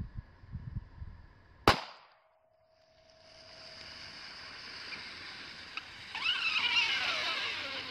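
A single .22 pistol shot about two seconds in, then the punctured lithium-ion battery of an iPhone begins to hiss, growing louder and sputtering about six seconds in as it vents smoke.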